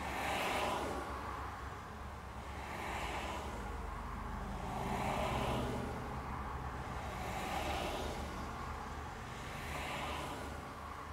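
Cars passing one after another on the road outside, heard from inside a car: five swells of tyre and engine noise, each rising and fading over about two seconds, over a low steady hum.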